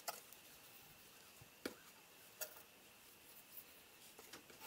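Near silence, broken by a few faint short taps and clicks, about two seconds apart, as a ball of yarn is handled and set down on a wooden tabletop.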